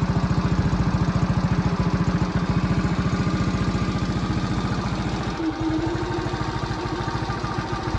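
Honda Super Cub AA01's single-cylinder four-stroke engine idling through an aftermarket Chinese-made muffler whose cracks have been welded shut, giving an even, pulsing exhaust note. The note changes briefly about five seconds in.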